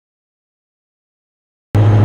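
Dead silence, then near the end a sudden cut into the cabin sound of Aurora's Centaur optionally piloted aircraft in flight: a steady, loud engine drone inside the cockpit.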